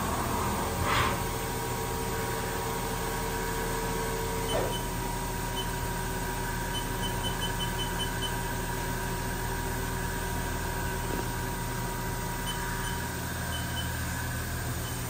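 Haas VF-3B vertical machining center running: a steady mechanical hum with a held high whine. A lower tone stops with a brief glide about four and a half seconds in, and faint short high pips recur.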